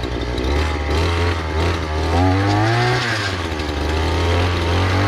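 An engine running steadily, its pitch rising and then dropping back about two to three seconds in.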